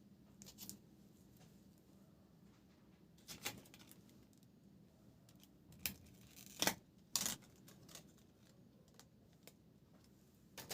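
Scattered sharp clicks and light scrapes of small parts being handled during laptop repair work, with the loudest pair of clicks a little past the middle.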